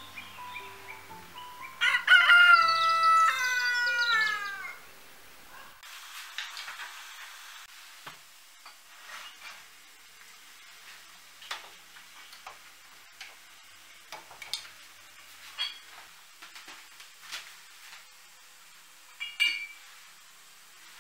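A rooster crows once, loud, about two seconds in, its call falling away at the end. After that come quiet, scattered clinks of china and a spoon as a teapot and cups are handled and a drink is stirred.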